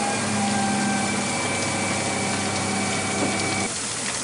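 A steady engine drone over a broad hiss, cutting off about three and a half seconds in and leaving the hiss.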